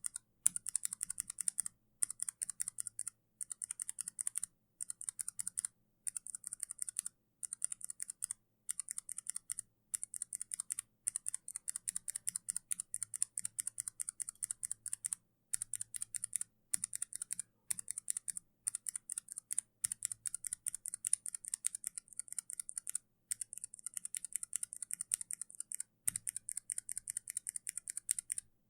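Typing on a mechanical keyboard fitted with Kailh switches: rapid runs of key clicks, each run about a second long, broken by short pauses.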